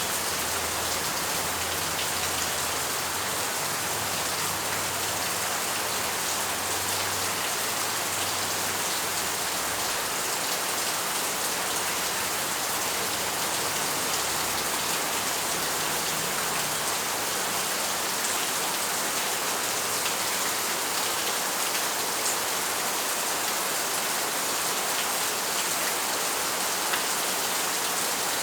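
Steady rain falling, a dense even hiss with faint scattered drop ticks.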